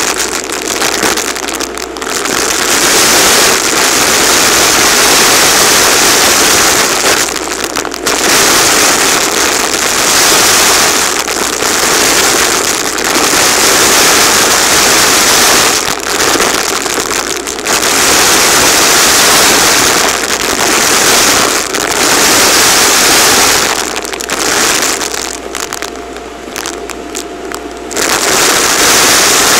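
Vacuum cleaner hose nozzle sucking up a heap of sequins and confetti from a hard floor: loud steady suction with the pieces crackling and rattling up the hose. The sound dips briefly every few seconds and goes quieter and smoother for a few seconds near the end.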